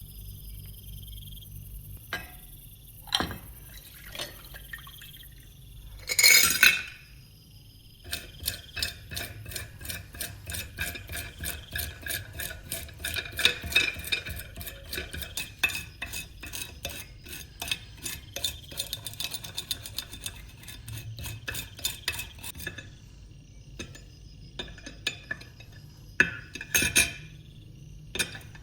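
Hand work on a metal knife blade: a few knocks and clinks, then a long run of quick rubbing strokes, several a second, with two short louder bursts about six seconds in and near the end.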